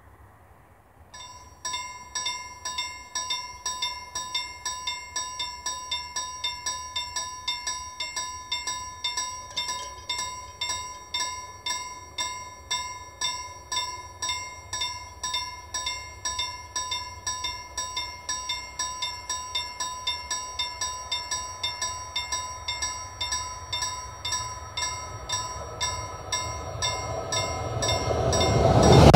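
Level crossing warning bell starting about a second in and ringing on in even, rapid metallic strikes. Near the end the noise of an approaching electric InterCity train rises under it.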